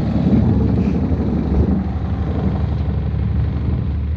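Longtail boat engine running steadily with the boat under way, a constant low drone.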